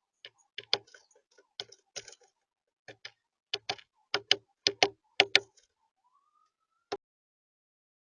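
Birds pecking and tapping at a feeder close to the microphone: a run of sharp, irregular clicks and taps, several in quick pairs, with a faint short rising note after them.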